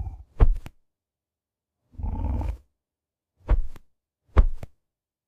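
Cartoon cat growling in low rumbles: a longer growl of under a second, then short sharp growls, a rumbly noise like a big truck.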